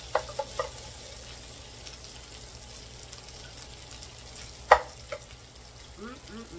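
Wooden spatulas clacking against a nonstick electric skillet as fried rice is tossed, a few quick knocks in the first second, then the rice frying with a faint steady sizzle. A single sharp clack comes a little under five seconds in as a wooden spatula is laid down in the pan.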